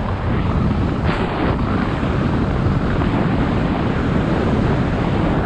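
Wind rushing over the microphone of a mountain bike's helmet camera as the bike descends a paved road at speed, mixed with the rumble of its tyres on the asphalt.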